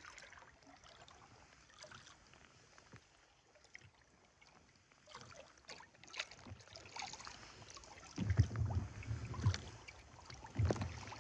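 Water lapping and splashing against a kayak's hull as the boat is paddled through light chop, with small irregular splashes, then heavier low thumps and splashes from about eight seconds in.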